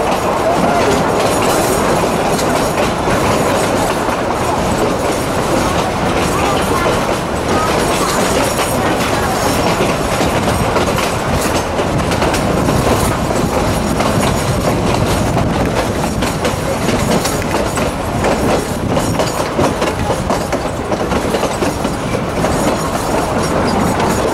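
Narrow-gauge passenger train rolling along at speed, heard from an open coach window: a steady rumble and rush of wheels on rail with irregular clicks as the wheels cross rail joints.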